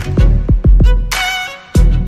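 Background music with a steady beat and a sustained melody.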